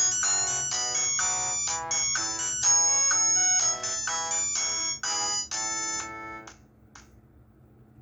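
Huawei ETS688 fixed wireless phone playing a polyphonic ringtone melody, a quick run of synth notes that stops about six and a half seconds in. Two short blips follow, then only a steady low hum.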